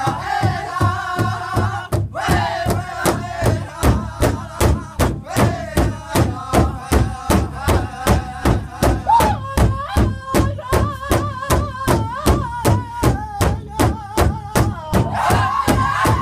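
Powwow drum group singing an intertribal song: several men strike one large shared powwow drum in a steady beat of about three strokes a second, with high-pitched male voices singing together over it.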